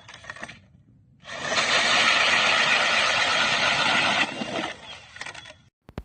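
DeWalt DCD996B cordless hammer drill running at speed for about three seconds, spinning up quickly, then winding down, followed by a single click near the end.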